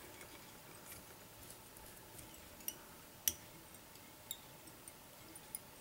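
A handful of faint, sharp ticks over quiet room tone, the loudest a little over three seconds in, from hands and a bobbin winding floss around a jig hook held in a fly-tying vise.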